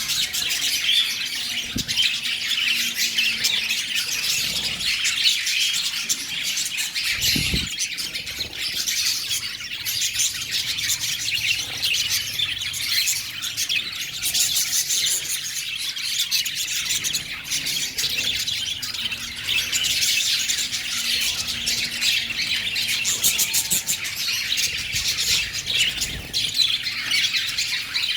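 Lovebirds chattering and squawking continuously, a dense, unbroken stream of high-pitched calls.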